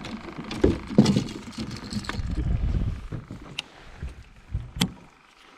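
Fishing gear being handled on the floor of a small carpeted boat: knocks and thumps, a low rumbling scrape, then a couple of sharp clicks near the end as a baitcasting rod is cast.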